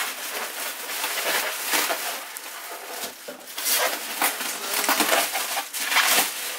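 Irregular rustling, crinkling and scraping of white packing wrap and cardboard as wrapped stainless exhaust parts are handled inside their box, in a run of short scratchy strokes.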